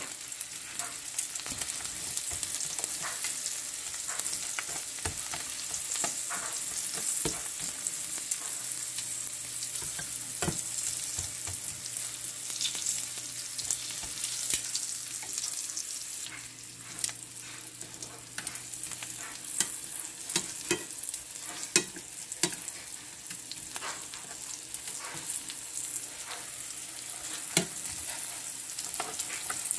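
Dried salted herring (tuyo) sizzling in hot oil in a frying pan: a steady frying hiss dotted with many sharp pops and clicks, while metal tongs turn the fish.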